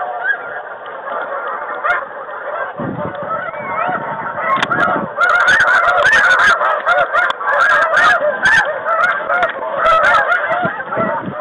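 A flock of snow geese calling over the decoys: a dense chorus of overlapping high honks that grows louder about five seconds in.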